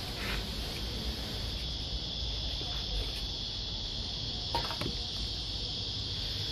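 Steady, high-pitched chirring of insects in a continuous chorus, over a low steady rumble.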